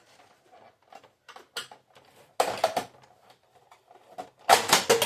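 Plastic printer parts being handled and pried apart: scattered clicks and knocks, a short clatter about halfway through, and a louder burst of plastic clattering near the end.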